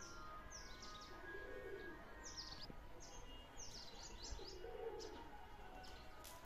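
Small birds chirping in quick, high, falling notes that come in clusters. Soft low cooing of a dove comes in now and then underneath.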